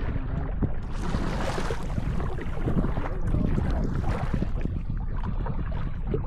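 Wind rumbling on the microphone over small waves lapping against a kayak, a steady low rush with stretches of brighter hiss.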